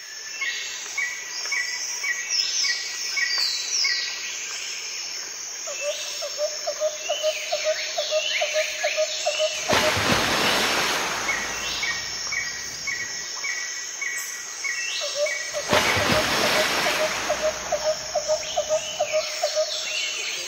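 Background nature-ambience soundtrack: birds chirping and a pulsing insect- or frog-like call about four times a second, repeating in a loop, with two swells of rushing noise like a gust of wind, one midway and one later on.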